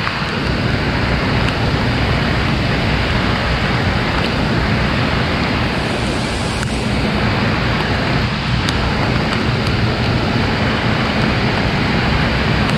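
Steady rushing water noise of rain and moving water, an even loud hiss with no breaks. A faint low hum comes in past the middle and grows near the end.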